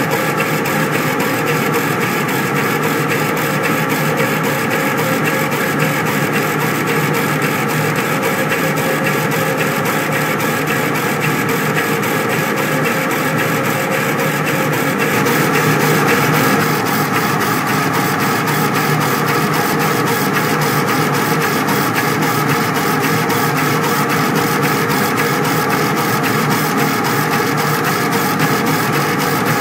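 Laser engraver at work, its head carriage shuttling back and forth in a fast, even rhythm over a steady mechanical drone as it rasters an image line by line. The tone shifts a little about halfway through.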